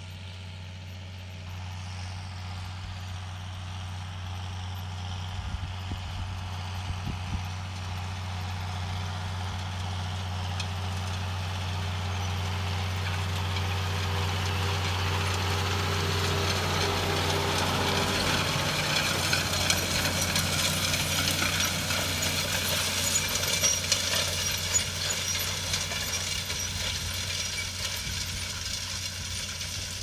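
Tractor engine running steadily. A clattering mechanical noise builds up over the second half, at its loudest about two-thirds of the way through, then eases slightly.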